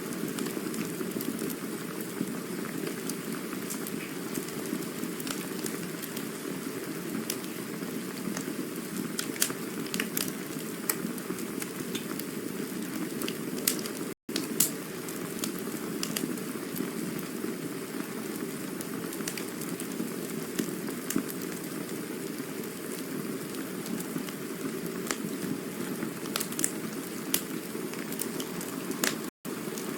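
Campfire burning: a steady rushing hiss with frequent small crackles and pops. The sound cuts out for an instant twice, once about halfway through and once near the end.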